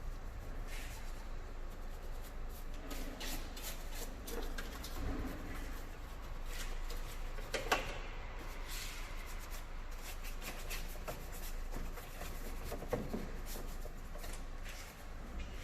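Hand cleaning of car parts: irregular short rubbing and scraping strokes, as from a brush or cloth, with a sharper knock near eight seconds.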